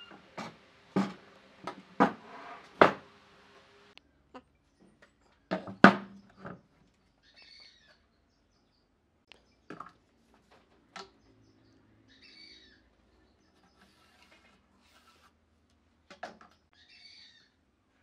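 Heavy wooden pieces knocked and set down on a wooden workbench: a run of sharp thuds in the first six seconds, the loudest near the end of the run. After that, a few faint short bird chirps.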